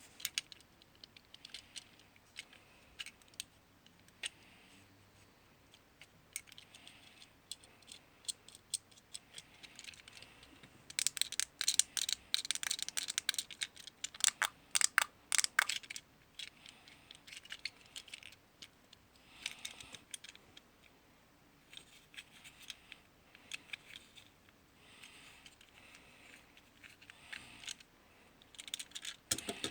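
Plastic fidget cube being clicked and fiddled with: scattered sharp clicks, with a fast run of rapid clicking a little before halfway.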